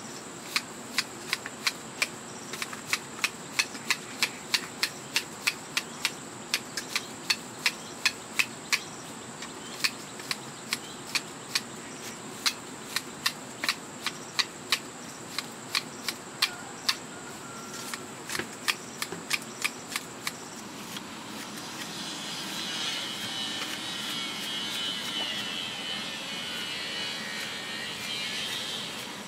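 A long run of sharp knocks or strikes, about two to three a second, which stops about twenty seconds in; then a steady scratchy rasping to the end. A thin, steady high tone runs under it all.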